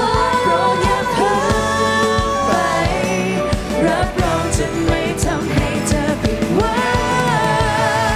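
Pop song playing: a sung vocal line with held, gliding notes over a backing track with a steady drum beat.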